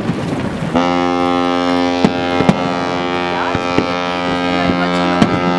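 Ship's horn sounding one long, steady blast that starts about a second in and stops near the end, with several firework bangs going off over it.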